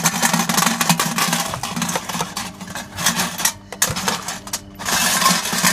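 Rapid, irregular metallic clicking and clattering as the steamed chicken, corn and peppers are emptied out of the can cooker, with short pauses a little past halfway.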